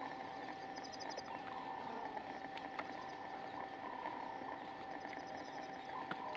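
Steady chorus of frogs and insects, with a short rapid high trill about a second in and again about five seconds in, and scattered sharp clicks.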